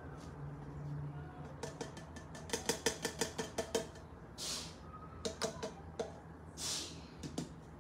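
Plastic baby-food cup clicking and knocking in quick succession, about four or five clicks a second, as its lid is worked and the cup shaken, then two short breathy sips from its spout.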